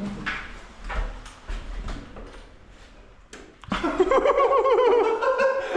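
A couple of sharp clicks, then from about two-thirds of the way in a man's voice yelling loudly without clear words, the opponent's reaction to being threatened.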